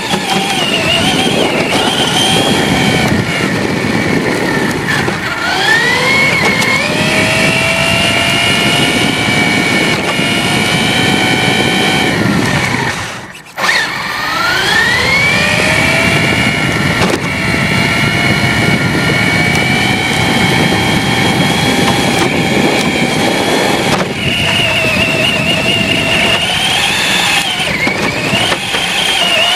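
Electric RC car motor whining under a rough running noise. Its pitch rises as the car speeds up about five seconds in, then holds high and steady. The sound drops out briefly about halfway through, rises again as the car speeds up once more, and then runs steady.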